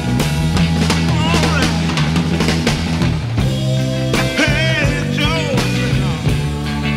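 Rock music with a steady drum beat, bass and gliding melodic lines.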